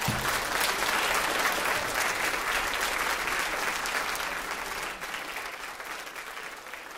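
Audience applauding at the end of a comic story read before a live audience. The applause starts at once, is loudest for the first few seconds, and dies away over the last two.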